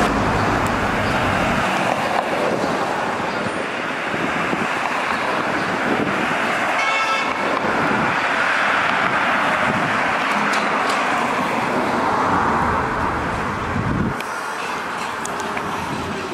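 City street traffic as an electric trolleybus approaches and passes: a steady wash of car and tyre noise, with a short high toot about seven seconds in.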